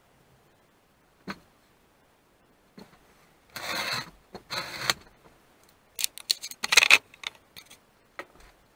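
Cleaning an old chainsaw: a single click, then two short hissing bursts of aerosol cleaner, each about half a second, then a quick cluster of metallic clinks and rattles as the parts are handled.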